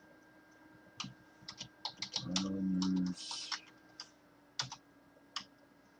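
Keystrokes on a computer keyboard, typed in short irregular runs with pauses between them.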